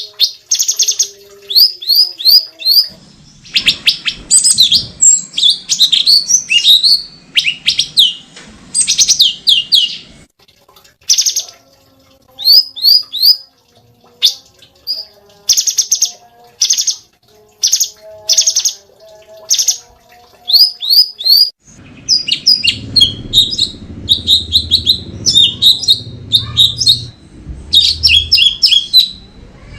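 Cucak cungkok songbird singing in quick strings of sharp chirps and short trills, repeated in bursts with brief gaps. A low rumble sits under the song for several seconds near the end.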